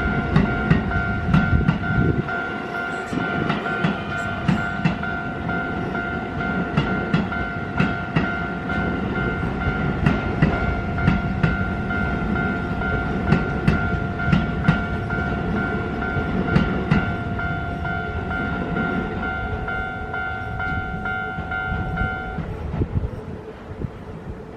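Keio 9000 series electric train passing over a Japanese level crossing, its wheels clacking over the rail joints under a low rumble, while the crossing's warning bell rings steadily. The bell cuts off near the end as the train clears.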